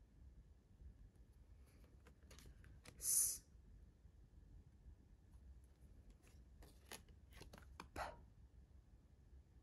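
Paper phonics flashcards being handled and swapped one for the next: faint scrapes and small ticks, with a short hiss about three seconds in and a cluster of quick clicks around seven to eight seconds in.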